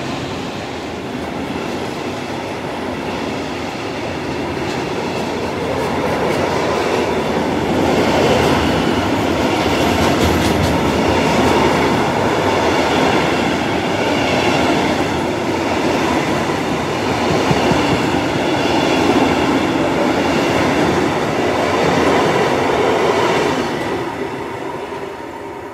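Loaded timber wagons of a freight train rolling past at speed: a steady rumble and clatter of steel wheels on the rails, fading near the end as the last wagons go by.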